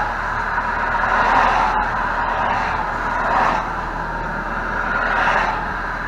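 Steady rush of highway traffic passing close by, swelling three times as vehicles go past.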